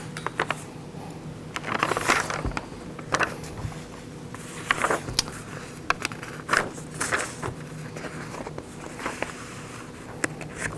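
Sheets of paper rustling and pages being turned, in short irregular bursts, over a faint steady low hum.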